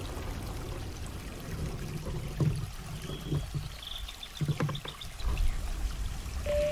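Water trickling and pouring around a kayak on a flowing creek, with a few sharp knocks from the paddle and fishing rod being handled on the kayak, about two and a half and four and a half seconds in.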